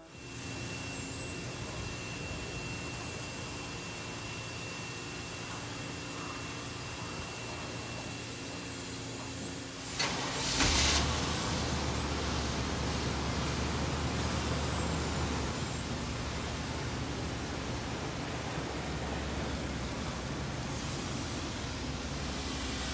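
Steady hiss and hum of self-serve car wash equipment, with a thin high whine wavering over it. About ten seconds in there is a short, loud hiss, after which the low hum grows stronger.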